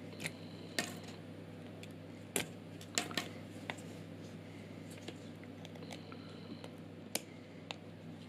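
Scattered light clicks and taps from the plastic body of a solderless breadboard being handled and turned in the hands, about eight in all and irregular, over a low steady hum.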